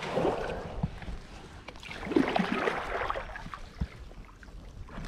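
Kayak paddle strokes in the water beside an inflatable kayak: two swishing, gurgling splashes about two seconds apart, with a few light knocks.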